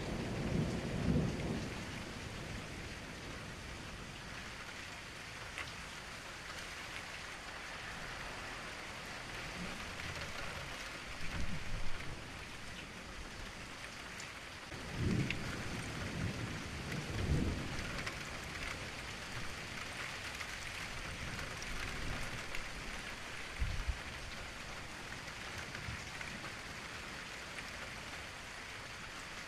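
Steady, hissing rain with thunder: several low rumbles swell and fade over the rain, the biggest about a second in and again in the middle of the stretch.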